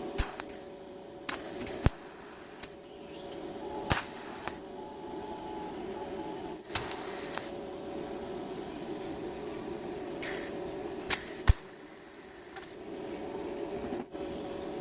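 Welding equipment at work: a steady low hum broken by short bursts of hiss and sharp clicks, the loudest click about three-quarters of the way through.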